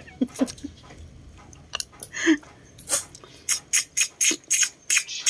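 Lips sucking at cooked snail shells to draw out the meat: a rapid series of short, sharp slurping sucks in the second half.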